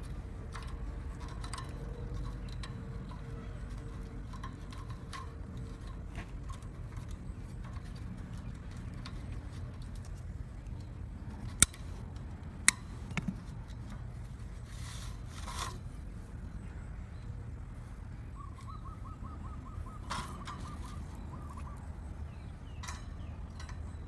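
Side cutters snipping the tails off plastic cable ties: two sharp clicks about a second apart near the middle, over a steady low background rumble.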